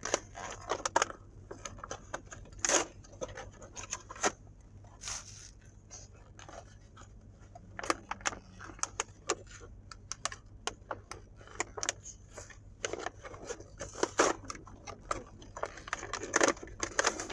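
Plastic toy packaging crinkling and rustling, with irregular sharp clicks and small taps, as miniature-toy blind packs are handled and opened.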